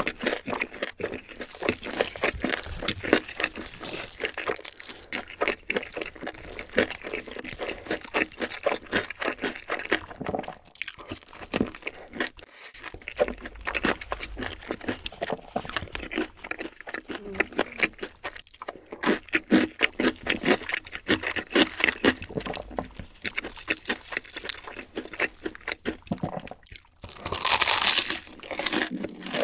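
Close-miked eating: a person crunching and chewing crunchy food in a continuous run of quick, irregular crackles and bites. A short, louder rustle comes near the end.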